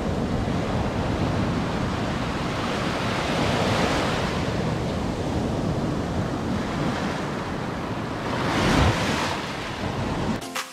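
Ocean surf breaking and washing up on a sandy beach: a steady rush of foaming water, swelling into a louder rush near the end.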